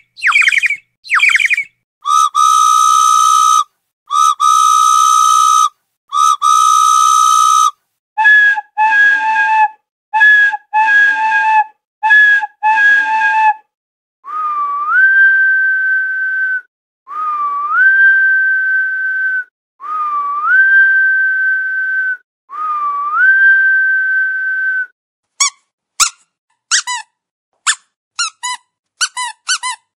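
A series of whistle-like sound effects: a few short falling chirps, three long steady tones, five short two-note beeps, four whistles that slide up and then hold, and a run of quick chirps near the end.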